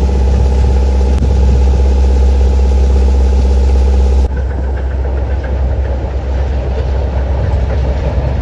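Diesel engine of paddy-harvesting machinery running steadily with a deep, even hum. The sound drops abruptly a little over four seconds in and carries on slightly quieter.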